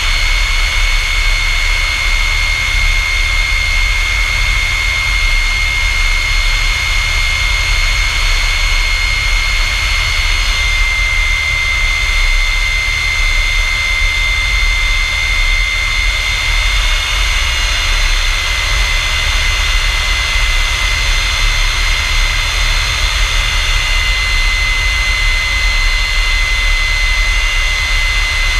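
F-100 Super Sabre's Pratt & Whitney J57 turbojet running steadily: a loud rush with a high, steady whine on top that shifts slightly in pitch about ten seconds in.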